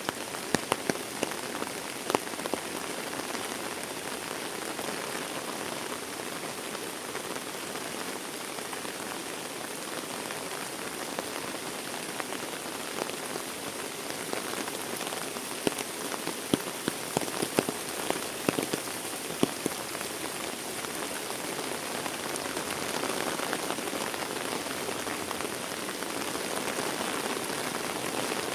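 Heavy rain falling steadily, with scattered louder individual drop impacts standing out, a few near the start and a cluster around the middle.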